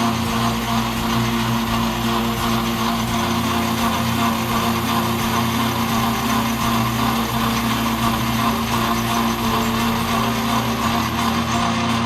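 Atlas Craftsman 12-inch metal lathe running steadily, its motor and drive giving a constant hum with an even whir over it.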